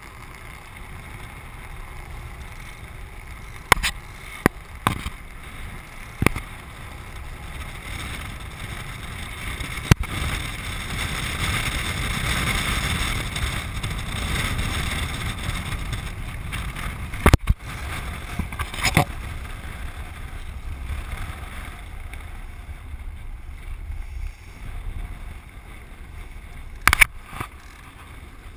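Manta land sailer under way: a steady rush of wind and rolling noise that swells in the middle, broken by several sharp knocks.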